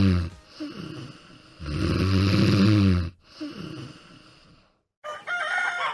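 Snoring: two long, loud snores, each followed by a quieter breath, then a brief silence. A rooster crow starts near the end.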